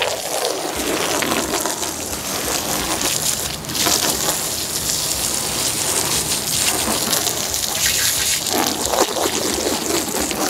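Garden hose spraying water onto a floor mat, a steady hiss of water rinsing off the soap after scrubbing.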